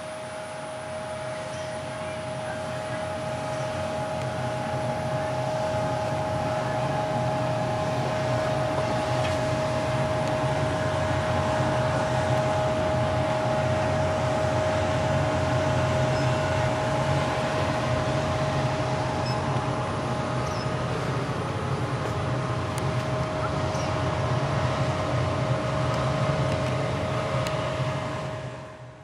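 Steady drone of the steamboat's deck machinery running, a constant whine over a low hum, like ventilation fans. It grows louder over the first few seconds and fades out near the end.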